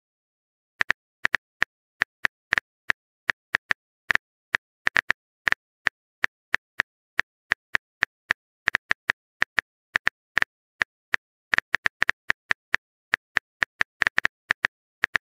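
Typing sound effect: a quick, irregular run of short clicks, about four a second, starting about a second in.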